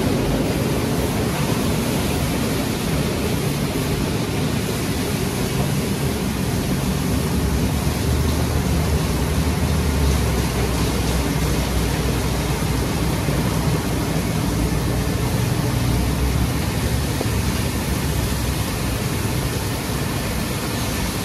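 Belanger mini-tunnel car wash running as a car passes through: spinning cloth brushes and water spray jets hitting the car's body, a steady rushing wash noise.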